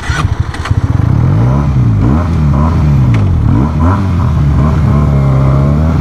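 Motorcycle engine starting, then running with the revs rising and falling several times before it settles to a steadier note.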